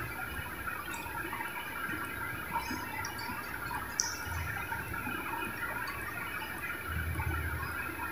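Steady background room noise with a sharp tick about four seconds in and a few soft low thumps.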